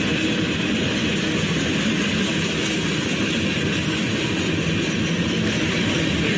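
Freight train cars rolling past, a steady rumble and rush of wheels on rail.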